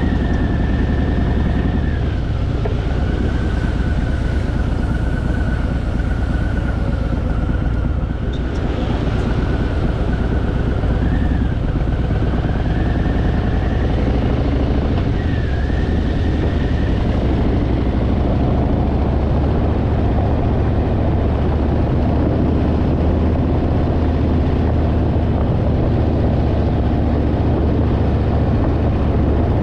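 Harley-Davidson Fat Boy's V-twin engine running at a steady road speed, a continuous low drone, with a thin wavering whistle over it for the first half.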